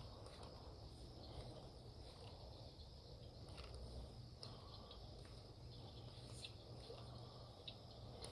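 Near silence: faint outdoor pond ambience, with a steady high insect chirring and a few faint short chirps scattered through it.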